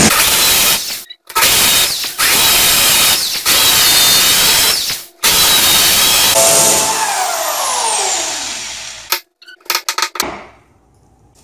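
Corded hammer drill in hammer mode boring into a cement block wall with a masonry bit, in three loud runs broken by short pauses. After the last run the motor winds down with a falling whine, and near the end a hammer taps a few times at the wall.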